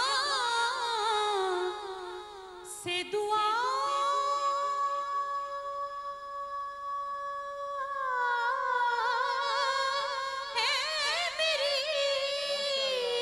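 A woman singing an Urdu naat into a microphone, with ornamented runs and one long held note of about four seconds a few seconds in.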